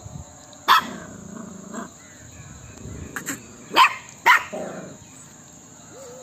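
Small puppy barking: three sharp barks, one about a second in and two close together near four seconds.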